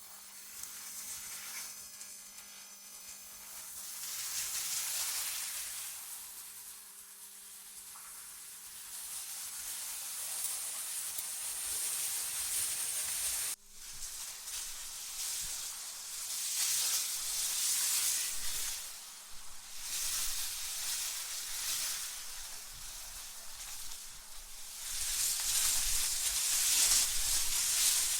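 Wind gusting: a hissing rush that swells and fades in slow waves, with a brief sudden dropout about halfway through.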